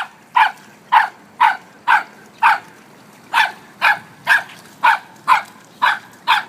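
A puppy barking over and over in short, sharp, high barks, about two a second, with a brief pause midway.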